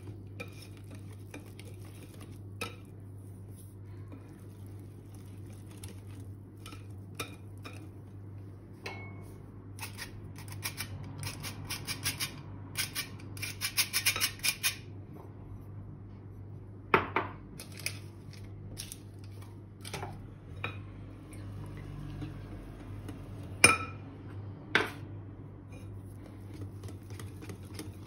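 Wire whisk clicking and scraping against a glass mixing bowl as cake batter is beaten. About halfway through comes a dense run of quick metallic clicks from a hand-crank flour sifter over the bowl. Later there are a few sharp knocks of metal on glass.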